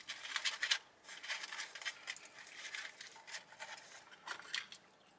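Close-miked crackling and crinkling from eating and handling food and its paper wrapping: a quick, irregular run of small crisp clicks that thins out near the end.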